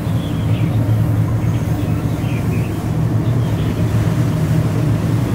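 Tour boat's engine running with a steady low hum while under way.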